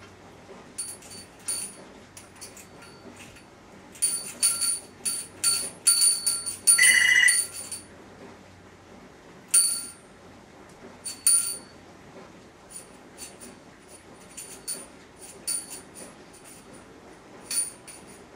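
A small metal bell rung and jangled by an African grey parrot: irregular clanging strikes, a busy run of them in the middle with one louder, harsher burst about seven seconds in, then single rings and light taps on the bell.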